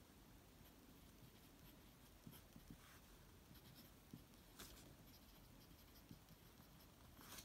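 Medium #5 nib of a Jinhao 250 fountain pen scratching faintly across notebook paper in short, irregular strokes as words are written.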